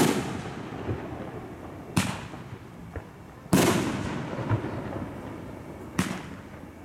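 Aerial firework shells bursting: four sharp booms about every two seconds, the loudest a little past halfway, each trailing off in a rolling echo, with fainter pops between them.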